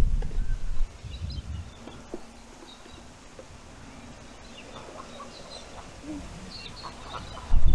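Wind buffeting the microphone with a heavy rumble, dropping away about a second in; in the lull, scattered short bird calls are heard. The wind gusts back in right at the end.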